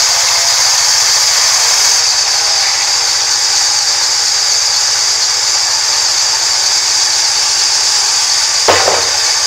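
Large vertical band sawmill running steadily, its blade cutting a slab off a rain tree log with a loud high-pitched hiss. A single brief knock comes near the end.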